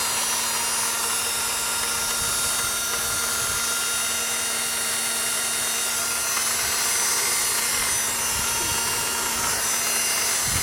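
Steady electric whirring whine from a 1997 Acura CL's starter area with the engine off and only the ignition on. It sounds like a starter motor spinning, and vibration can be felt at the starter, so something is turning in there when it should not be.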